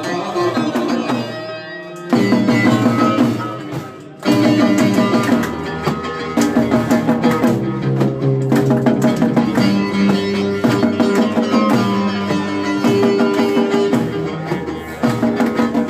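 Live folk music with a steady hand-drum beat under melodic string instruments. It drops away briefly about two seconds in and again around four seconds, then resumes.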